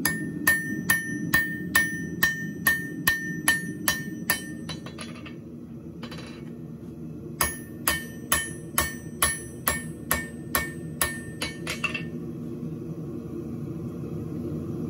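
Light hammer planishing a hot, roughly 3/8-inch square steel bar on the anvil in a final low heat to crisp up the faces: two runs of ringing strikes, about two a second, with a pause about five seconds in. A steady low hum, most likely the gas forge, runs underneath.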